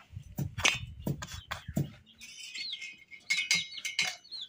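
A few knocks and clinks of cookware in the first two seconds, then a bird chirping: a run of short, high, arching notes, several a second.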